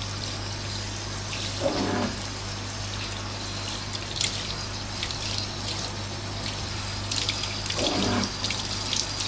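Handheld shower head spraying water onto a wet dog's hindquarters in a bathtub: a steady hiss of spray with splashing as the mud is rinsed off.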